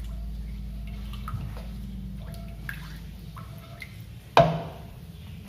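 Silicone spatula stirring a watery spice paste around a ceramic-coated wok: soft liquid splashing and light scrapes. About four and a half seconds in comes one sharp knock with a short ring, the spatula striking the wok.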